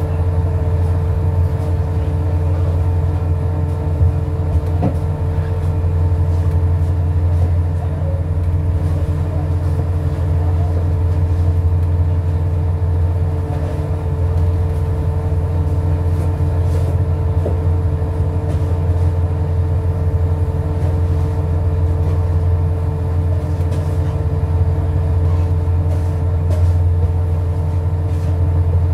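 Fishing boat's engine running steadily, a low, even drone with a steady hum above it, and a few faint knocks from deck work.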